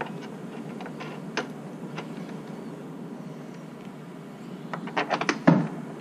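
Hands fitting metal wing nuts onto bolts under a virtual pinball cabinet: scattered light clicks and taps over a steady low hum. About five seconds in comes a quick run of clicks, ending in a louder knock against the cabinet.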